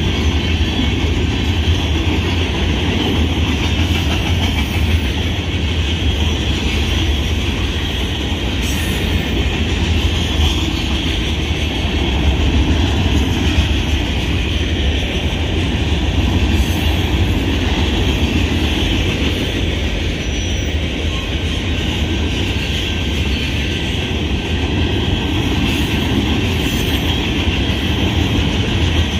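Freight cars of a manifest train rolling past at a grade crossing: a steady, loud rumble of steel wheels on the rails, with a few sharp clanks now and then.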